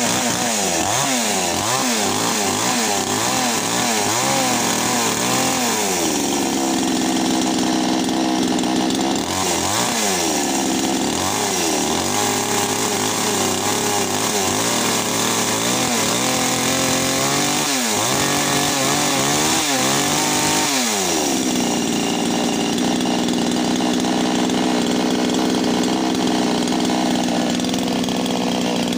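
Gasoline two-stroke chainsaw running. The throttle is blipped over and over, so the engine revs up and falls back many times. About 22 seconds in it settles to a steady low-rev idle.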